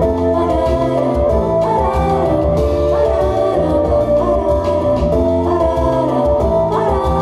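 A pop song played as a backing track with bass and a steady beat, and a girl singing over it into a handheld microphone.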